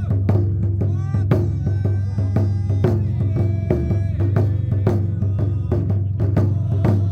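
Festival music: drums struck in a quick, steady rhythm, several strikes a second, under a high melodic line with sliding notes.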